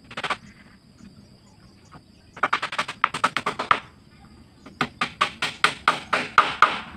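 Hammer blows on wood, struck in two quick runs of about ten light taps each, roughly six a second, as a frame piece of a wooden jukung boat is nailed or knocked into place.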